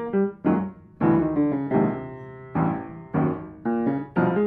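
Piano music: single notes and chords struck one after another, each ringing and fading, with a quicker run of notes about a second in.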